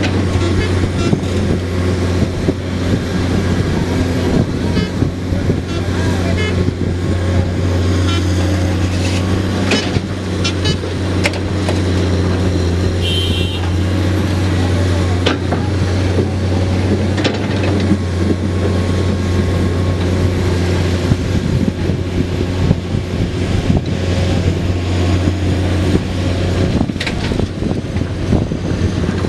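Diesel engine of a Komatsu PC210 hydraulic excavator running steadily with a deep hum, with scattered knocks and clatter from the digging and loading.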